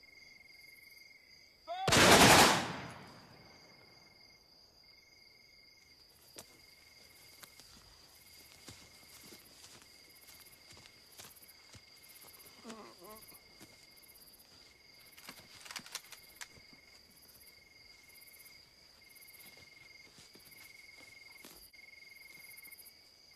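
One loud bang with a reverberant tail about two seconds in. After it, crickets chirp at night in a slow regular rhythm over a steady high insect drone, with a few faint knocks.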